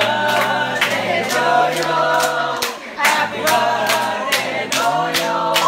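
A small group of people singing a birthday song together, clapping in time about twice a second.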